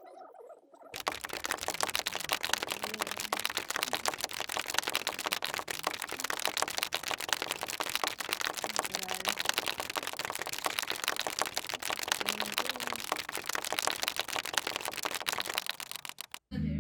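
Dense, rapid clicking and crackling that starts suddenly about a second in and cuts off suddenly near the end.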